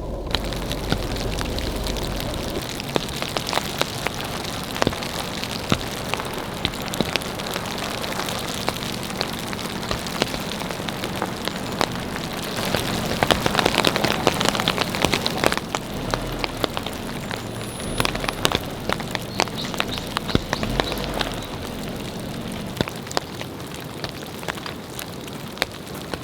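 Steady winter rain, with many individual drops ticking sharply on a nearby surface. It grows a little heavier for a few seconds about halfway through.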